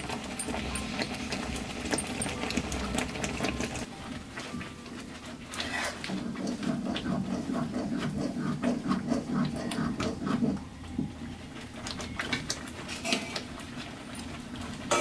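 Stinging-nettle soup simmering in a metal pan over a wood fire, while a ladle stirs and scrapes the pan in a quick, even rhythm for a few seconds midway. Sharper metallic clinks near the end as a metal plate is handled by the pan.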